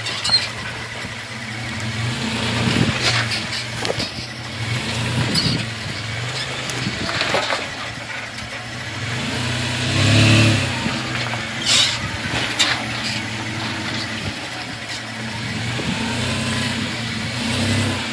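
Lifted Toyota 4Runner's engine running at low revs as it crawls over concrete pipes and rocks, revving up briefly about ten seconds in. Scattered short knocks and crunches come from the tyres and underbody on rock and concrete.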